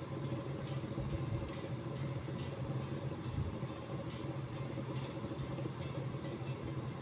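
A steady low mechanical hum with faint, irregular high ticks over it.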